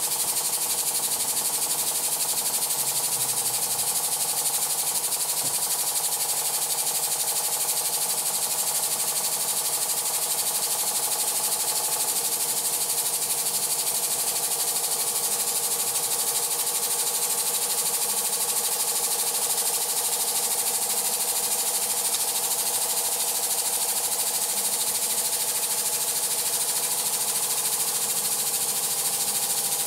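Weeden 902 electrically heated toy steam engine running steadily at speed, with a rapid, even clatter from its cylinder and flywheel.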